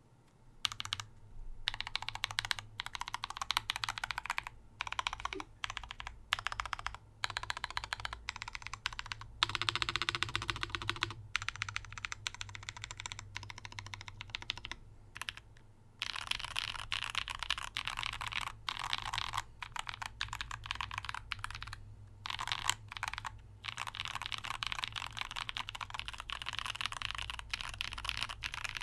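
Typing on the LVL TYPE-01/80 custom mechanical keyboard, with lubed Holy Panda tactile switches and GMK doubleshot ABS keycaps on a deskmat. Rapid runs of keystrokes are broken by short pauses.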